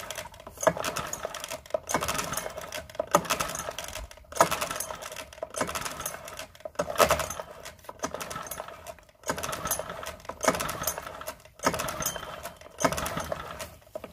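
Parsun 4 single-cylinder four-stroke outboard being cranked by its pull-cord recoil starter over and over, about one pull every 1.2 seconds, the engine turning over without firing. It is pumping up a compression gauge fitted in the spark plug hole with the throttle open: the cranking of a dry compression test.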